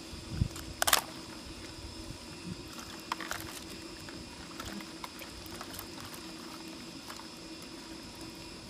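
Water sloshing and splashing in a plastic basin as hands scrub a large crab, with a few sharp knocks, the loudest about a second in. A steady insect drone runs underneath.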